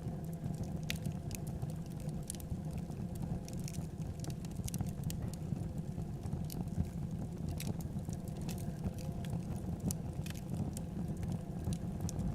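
Wood fire burning in a fireplace: a steady low rumble with irregular sharp crackles and pops scattered throughout.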